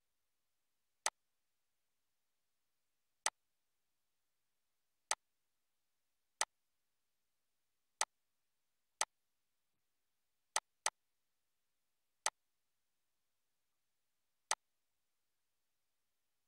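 Computer mouse clicks: about ten single sharp clicks spaced irregularly a second or two apart, with one quick double-click about two-thirds of the way in.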